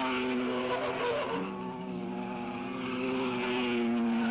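Engines of racing sports cars running at speed through a corner, several steady engine notes at different pitches overlapping, with a lower note joining about a second and a half in.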